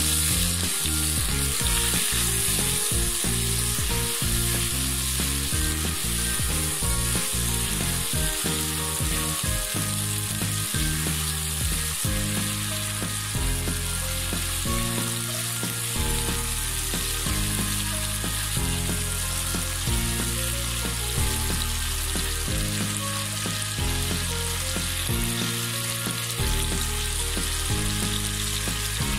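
Chicken pieces sizzling steadily as they fry in butter in a nonstick wok, stirred with a silicone spatula in the first half.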